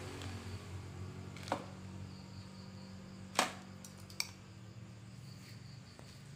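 Three short, sharp clicks from welding kit parts being handled, the loudest about three seconds in, over a steady low hum.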